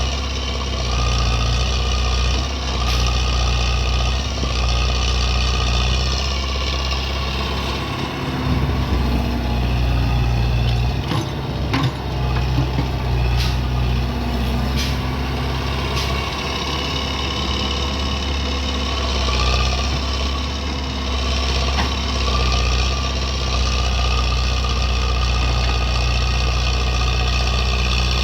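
Excavator's diesel engine running steadily, its pitch and load shifting as the machine works, with a whine above it and a few sharp clanks about halfway through.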